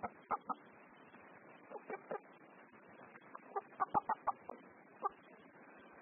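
Afghan Lari fighting chickens clucking in short, separate calls, with a quick run of several about four seconds in.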